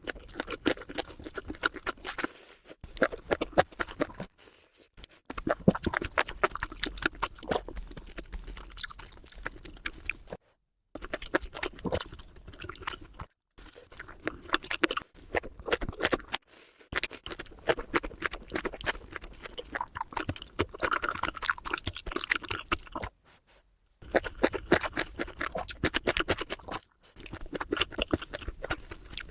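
Close-miked eating sounds: steady chewing with crisp crunching and clicky mouth noises, cut off to dead silence for a moment several times.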